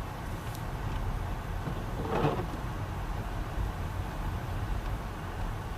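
Steady low rumble of a car's engine and tyres heard from inside the cabin while driving, with one short sound about two seconds in.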